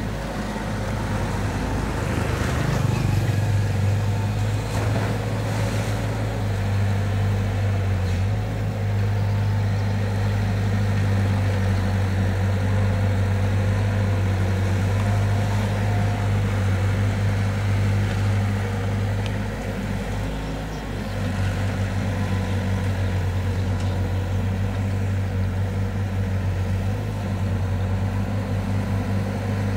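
Hitachi ZX120 long-reach excavator's diesel engine running steadily under load while the arm digs and swings. It gets louder for a few seconds near the start and eases briefly about two-thirds of the way through.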